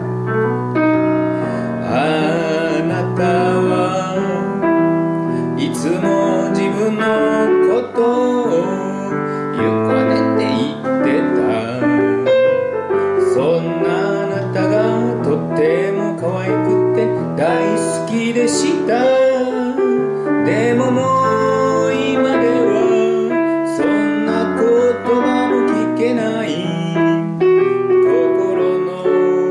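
A woman singing a slow song into a microphone over piano accompaniment.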